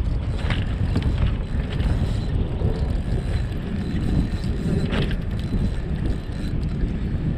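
Wind buffeting the microphone, a steady low rumble, with a few light clicks or knocks, about half a second in and again about five seconds in.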